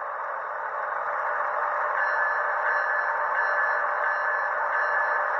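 Locomotive bell sound from an ESU LokSound decoder, played through the onboard speaker of an HO-scale Intermountain Tier 4 GEVO model. It rings steadily and clearly, without resonance, and its ringing tone stands out more from about two seconds in.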